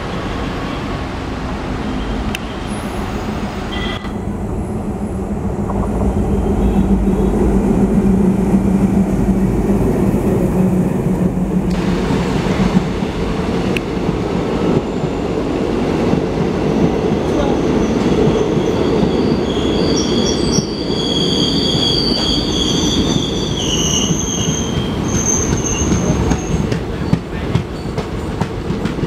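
WDM-3A diesel locomotive passing close, its engine giving a steady low hum, followed by its passenger coaches rolling by on the rails. Past the middle the wheels squeal in high thin tones for several seconds.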